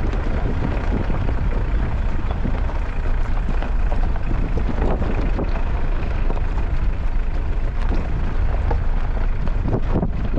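Mitsubishi Pajero driving on a rough, unpaved road: steady engine and road noise with wind rumbling on the microphone.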